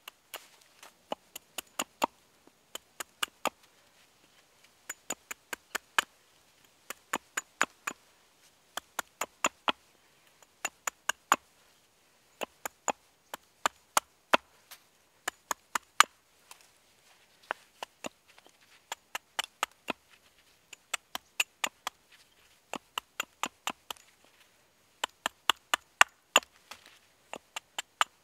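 Hatchet carving a small piece of wood on a stump chopping block: short, sharp chops in quick runs of four to six, about four a second, with brief pauses between runs.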